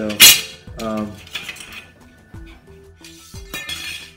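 A man's voice in the first second, then black picture-frame rails clinking and rubbing against one another and the countertop as they are picked up and handled.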